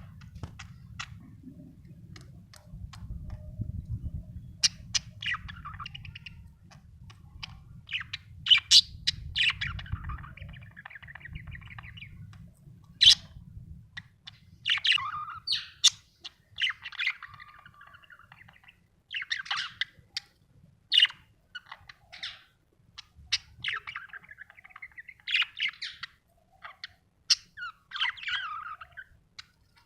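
Budgerigar chirping and warbling: sharp chirps and scratchy chattering phrases in bursts every second or two, over a low rumble that fades out about halfway through.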